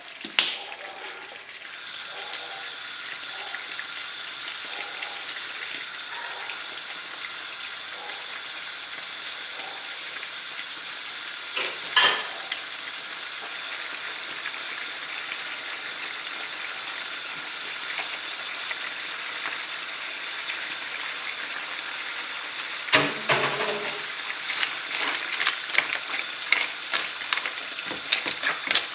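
Mussels and clams in tomato sauce sizzling steadily in a frying pan as white wine boils off, with one sharp knock about 12 seconds in. Near the end a wooden spoon stirs baby squid in among the shells, clattering against the shells and the pan.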